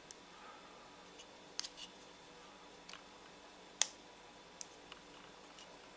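A few small, sharp clicks and taps as a plastic power-bank case and its circuit board are handled and turned in the fingers, the loudest about two thirds of the way through, over a faint steady room hum.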